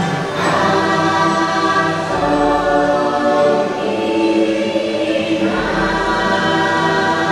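Choir singing in the dark ride's soundtrack: held voices and chords that shift every second or two.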